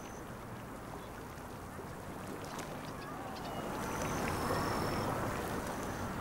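Steady hiss of water and steam from a steaming hot pool, growing louder about four seconds in, with a few thin high bird chirps over it.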